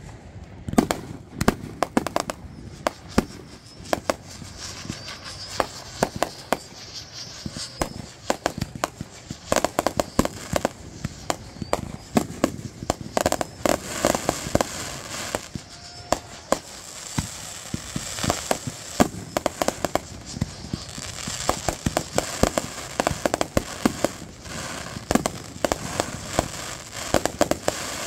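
Aerial fireworks display: shells bursting in a fast, continuous run of sharp bangs, often several a second in clusters, over a steady crackling hiss from the bursts.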